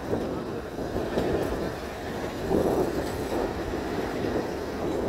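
Shimla toy train on the narrow-gauge Kalka–Shimla line, heard from on board: a steady running noise of wheels on the track that swells and eases a few times.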